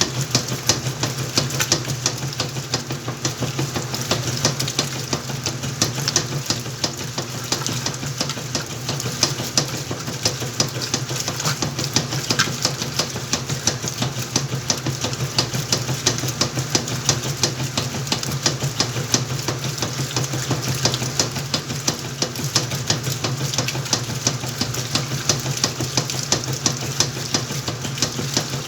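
Whirlpool washing machine running under a load of clothes: a steady motor hum with dense, irregular ticking over it.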